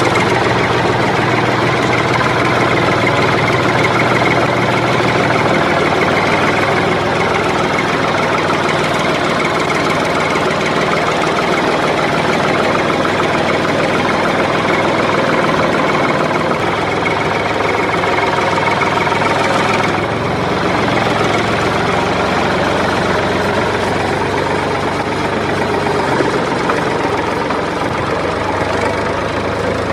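Tractor engine idling steadily, with a slight change in its low hum about twenty seconds in.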